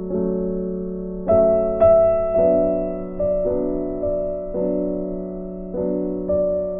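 Background piano music: slow, soft chords, each struck and left to fade before the next.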